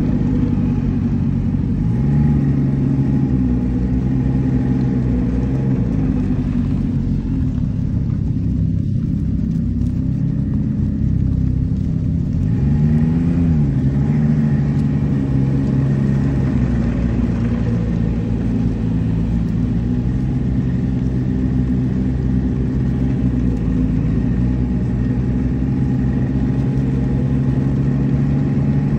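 Snowmobile engine running, heard from the sled's own back seat. Its pitch rises and falls briefly a few times as the throttle is eased on and off, about two seconds in, around ten seconds and again around thirteen seconds.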